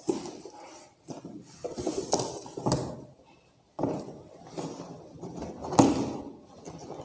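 Handling noise from unpacking and unfolding a children's play tent: irregular rustling of fabric and packaging with a few knocks, one sharper knock about six seconds in.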